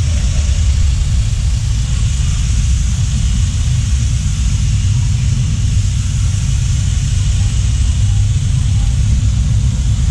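A motor running steadily, with a loud low rumble and an even hiss above it.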